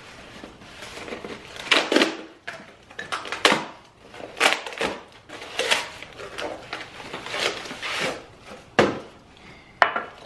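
Cardboard box being opened and unpacked by hand: irregular rustling, scraping and tearing of cardboard and packing material in short strokes.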